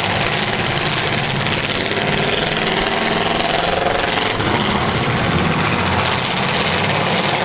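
Several demolition derby cars' engines running and revving together, a dense, steady mix of engine and exhaust noise as the cars circle.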